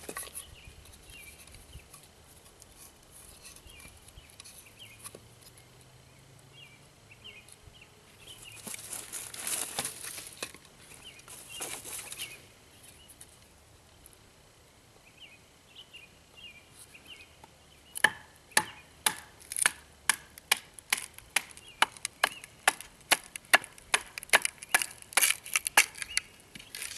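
Hardwood baton hammering the spine of a knife to split a hearth board off a basswood stick: a quick run of sharp wooden knocks, about two to three a second, starting about two-thirds of the way in. Before that come two short rasping sounds of the wood.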